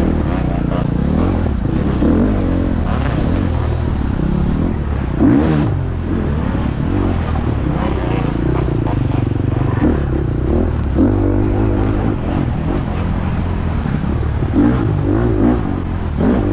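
Four-stroke single-cylinder dirt bike engine running hard under race load, its pitch rising and falling with the throttle and several quick rev rises.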